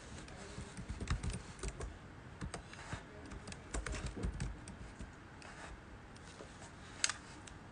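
Faint, irregular clicks and taps of typing on a keyboard, with one sharper click near the end.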